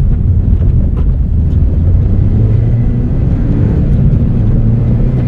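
The turbocharged 1.6-litre four-cylinder engine of a tuned Mini John Cooper Works GP2, heard from inside the cabin as the car drives along, a steady loud drone with road noise.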